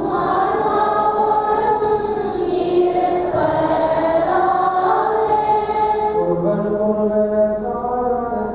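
Choir and congregation singing the Mass response to the priest's sung greeting of peace, female voices prominent. About six seconds in, a lower voice with held notes takes over.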